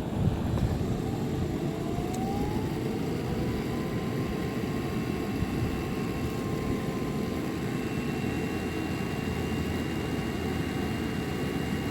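Dryer exhaust air rushing steadily out of a roof vent outlet, with a faint whine that rises over the first few seconds and then holds. The strong flow comes from a freshly cleaned dryer vent with a metal transition duct behind the dryer, measuring about 1244 feet per minute.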